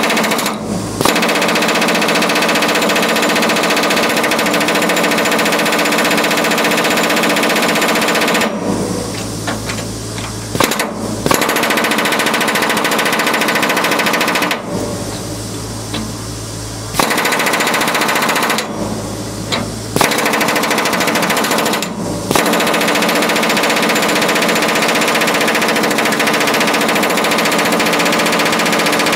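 Pneumatic rivet buster hammering its chisel against rivet heads on a wrought-iron beam, driving out old rivets, in five bursts of rapid blows with short pauses. In the pauses a low steady hum is heard.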